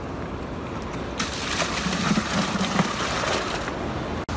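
Seawater and fish being poured from a plastic bucket into a plastic tub, splashing for a couple of seconds starting about a second in, over a low rumble of wind and surf.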